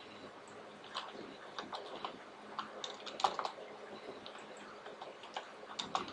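Typing on a computer keyboard: irregular keystroke clicks in short quick runs, starting about a second in.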